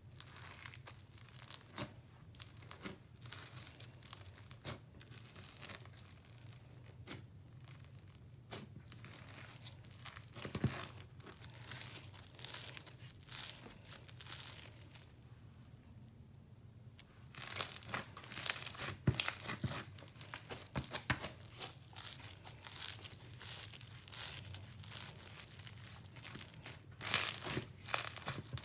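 Foam-bead floam slime in a school-glue base being squished and pressed by hand, crackling and popping in quick crunchy clicks. The crackles are sparse at first, with a lull a little past halfway, then grow denser and louder, with another loud cluster near the end.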